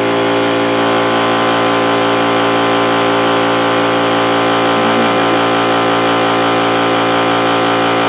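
DeWalt electric air compressor running steadily, its motor and pump holding an even, unchanging note; it keeps running with its cord connection under water, showing no short circuit.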